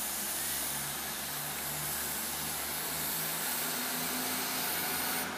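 Class 221 Super Voyager diesel-electric multiple unit pulling out, its underfloor diesel engines running under power as a steady drone with a hiss over it.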